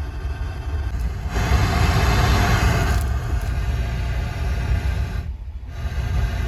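Cadillac Escalade's engine idling, a steady low rumble, with a broad hiss swelling up from about one to three seconds in.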